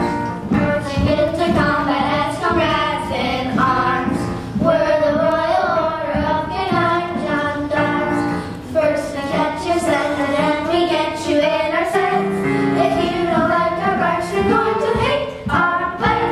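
Children singing a song as part of a stage musical, over steady instrumental accompaniment.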